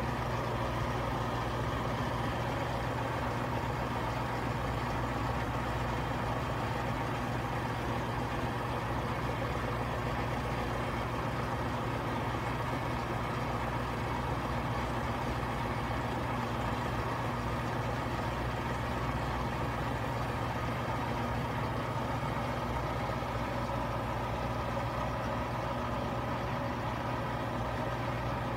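Frigidaire front-loading washing machine on its final spin cycle, the drum spinning at a steady speed with an even motor hum and whir.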